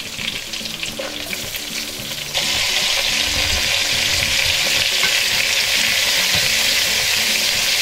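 Chopped onion and bell pepper sizzling on browned smoked sausage in a hot pot as they are stirred in with a spoon. The sizzle gets suddenly louder about two and a half seconds in and then holds steady.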